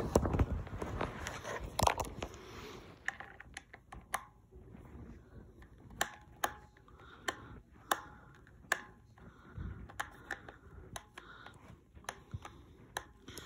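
Rustling handling noise for the first few seconds, then a string of sharp clicks and taps, one every half second to a second, as plastic toy parts and packaging are handled close to the microphone.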